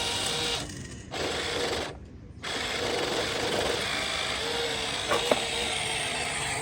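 Small electric gear motors of a radio-controlled model excavator whirring, cutting out briefly twice and starting up again, with a sharp click about five seconds in.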